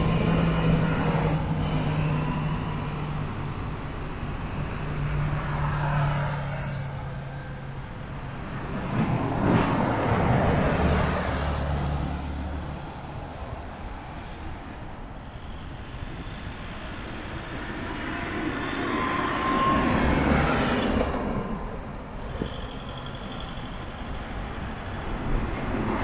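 Road traffic passing by, vehicles swelling and fading one after another. A double-decker bus's engine hum is heard at the start, louder passes come about ten and twenty seconds in, and a bus draws near at the end.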